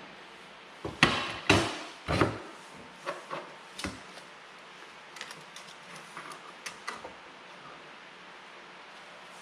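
Pieces of cut steel stock being handled, with three or four loud knocks and clunks about a second in, then a scattering of lighter clicks and taps.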